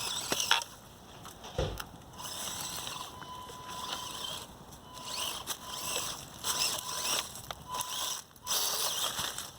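Axial SCX24 micro crawler's small brushed motor and gears whining in stop-start bursts as it crawls over rocks, with tyres scrabbling and a few sharp clicks against stone.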